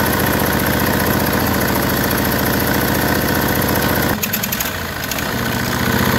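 Briggs & Stratton Vanguard V-twin overhead-valve engine idling with its air cleaner off, chuffing exhaust and oil mist out through the intake side. The blow-by is the sign of a blown head gasket letting exhaust into the crankcase. The sound dips and changes character briefly about four seconds in.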